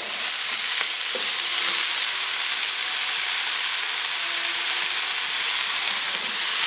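Blanched broccoli, cauliflower and carrot stir-frying in a wok, a steady sizzling hiss as a wooden spatula turns them.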